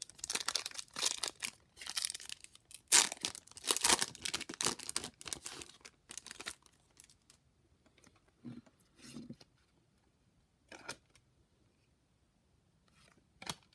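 Foil trading-card pack wrapper being torn open and crinkled for about six seconds, then a few brief, softer rustles of the cards being slid out and handled.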